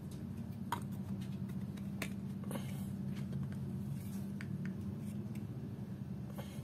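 A handful of light clicks and taps from hands handling a headphone stand's hard plastic base and its clear plastic packaging tray, over a steady low background hum.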